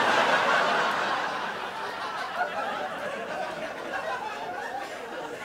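Theatre audience laughing, loudest at the start and slowly dying away.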